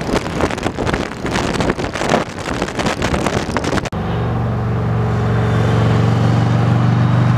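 A motor vehicle's engine running close by: a loud, rough, noisy stretch, then a sudden cut about four seconds in to a steady low engine hum.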